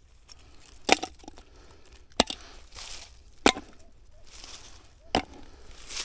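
A hand digging tool striking into the ground four times, roughly every one and a half seconds, with scraping between the strikes.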